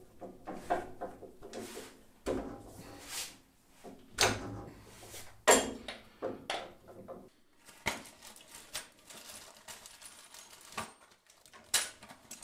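Small steel machine parts being handled: irregular clicks, scrapes and knocks of metal on metal as a ball screw's drive sleeve and washers are fitted into a steel housing block, with one sharper knock about halfway through. In the later part, loose bearings, washers and bolts rattle in a plastic tub.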